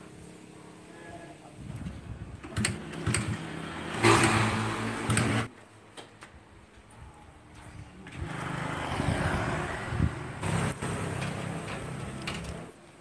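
A motor vehicle engine running nearby, louder in two stretches that stop suddenly, with scattered metallic clicks from engine crankcase parts being handled.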